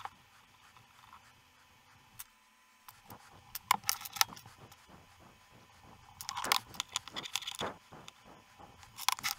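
Small metal and plastic parts of a soldering helping-hands set clicking and scraping as they are handled and fitted together. Almost quiet for the first few seconds, then scattered clicks, with a busier run about two-thirds of the way through.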